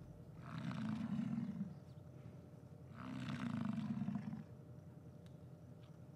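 American bison bull bellowing during the rut: two long, deep roars, each about a second and a half, with a pause between.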